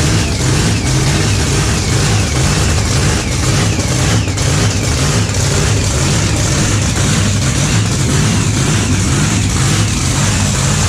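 Car engines running and revving loudly without a break, a deep engine rumble with a rough, crackly edge.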